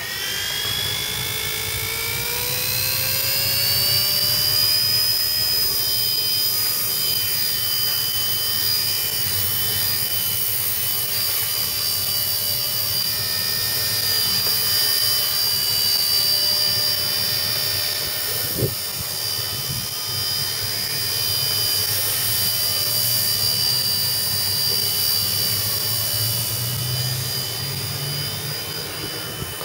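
WLToys V931 AS350 electric RC helicopter spooling up: its motor and three-blade rotor whine rises in pitch over the first few seconds, then holds steady while it flies. A brief click sounds about two-thirds of the way in.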